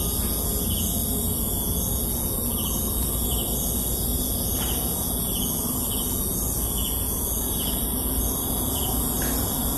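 Countryside ambience: insects keep up a steady high-pitched drone with evenly repeating chirps, over a low rumble.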